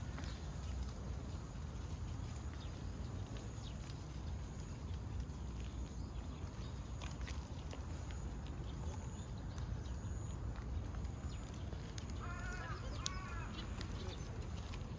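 A calico cat meowing twice in quick succession near the end, over a steady low outdoor rumble.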